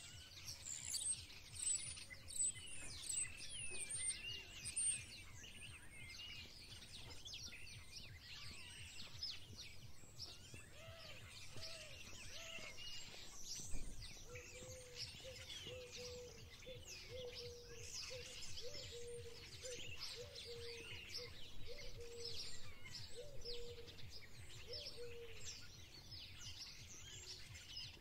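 Garden birds chirping and singing, many short overlapping high calls and trills. A lower repeated call joins in about halfway through, and a single brief knock sounds near the middle.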